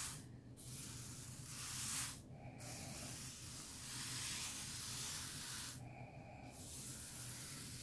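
Loose rhinestones swishing and rattling as a foam rhinestone brush is swept in circles across a flock rhinestone template, working the stones into the cut holes. The swishing breaks off briefly three times between strokes.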